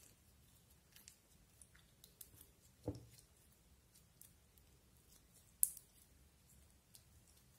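Clear slime being kneaded and stretched by hand: faint sticky clicks and crackles, with a soft thud about three seconds in and a sharper click near three-quarters through.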